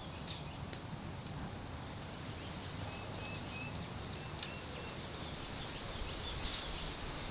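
Faint short bird chirps and a few small clicks over a steady low background noise.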